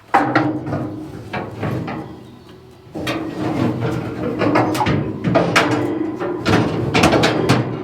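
Steel grill grate being slid and knocked into place in a braai: metal scraping and clanking in bursts, loudest right at the start and again through the second half.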